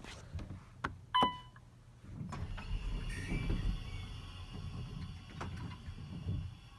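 Otis hydraulic passenger elevator: a short ding about a second in, then the door operator running as the doors slide, a steady low whirr with a faint high squeal over it.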